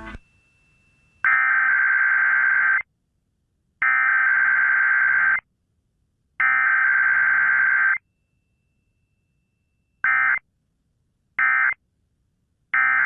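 Emergency Alert System SAME digital data tones: three bursts of about 1.5 s each, the encoded alert header sent three times. After a gap come three short bursts near the end, the end-of-message code.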